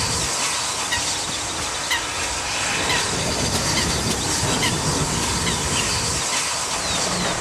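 Archive 1950s field recording of a steam train running by, with a steady clatter of wheels over rail joints and faint brief wheel squeals.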